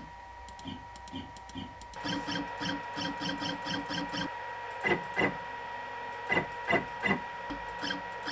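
Stepper motors of a Millright Carve King 2 desktop CNC jogging the router down toward an aluminum bar in short steps, with the router itself not running. After a few faint clicks, a run of quick, even buzzes about four a second gives way to a handful of single short moves, over a steady high whine.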